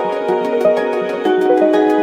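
Background music: held synth notes over a quick, steady beat, with the chord changing a little past halfway.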